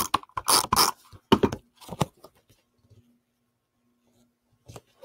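Paper and card being handled: several crisp rustles and crinkles in the first two seconds as a photo is worked onto a scrapbook page, then quiet, then a couple of soft taps near the end.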